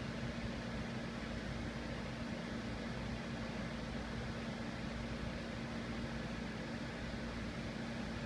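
Steady whirring hum of running cooling fans, with a constant low tone beneath.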